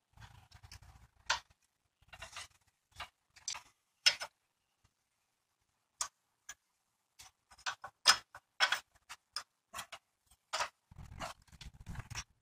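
Irregular clicks, taps and knocks of plastic, rubber and metal parts being handled at a car radiator's top mounts: the radiator's rubber mount bushing and brackets being worked loose, with a screwdriver on a bracket near the end. There is some rustling toward the end.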